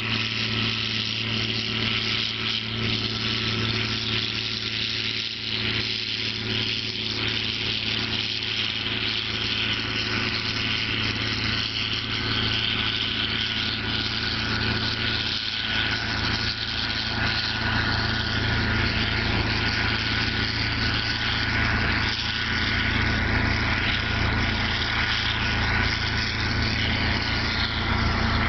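John Deere 4440 tractor's six-cylinder turbo diesel running steadily under load while pulling a John Deere 567 round baler through hay, with a thin steady whine above the engine note. It grows slightly louder toward the end.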